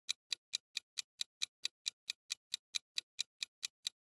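Clock-style ticking sound effect, a quick even tick about four to five times a second, marking a quiz's countdown timer.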